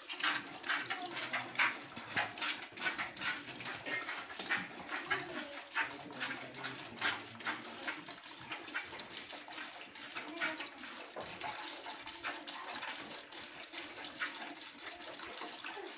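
Milk squirting into a plastic bucket as a cow is milked by hand, a short hiss with each squeeze, about two or three a second, fading and thinning out in the second half. The cow is stiff to milk, with small teats that slip from the hand.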